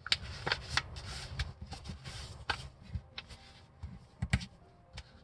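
A sheet of paper being folded and pressed flat by hand against a table: irregular crinkles, rustles and light taps as the crease is made.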